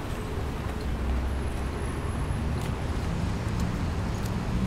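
Busy city street ambience: a steady low rumble of road traffic, with pedestrians' footsteps clicking now and then.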